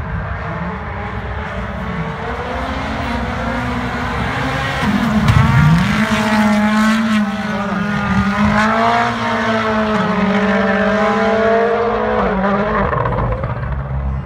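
Rally car engine at high revs passing close on a snow stage. The pitch drops sharply about five seconds in, then climbs and holds high, at its loudest around then, and eases off near the end.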